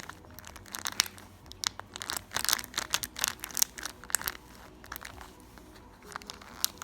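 Irregular crackling, crinkling and tearing as the Treasure X Alien toy is pushed into and cut open with the kit's plastic cutting tool, over faint background music.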